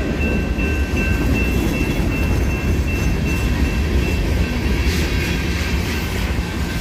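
Union Pacific freight train's boxcars and covered hopper cars rolling past close by, a steady heavy rumble of wheels on rail. A grade-crossing bell rings through it as a thin, steady high tone.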